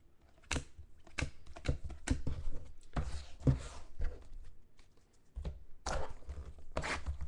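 Trading cards, a foil pack and a cardboard card box handled on a tabletop: a run of light taps and knocks mixed with rustling.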